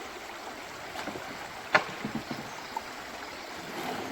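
Shallow brook water running steadily, with one sharp knock a little under two seconds in and a few lighter knocks just after it.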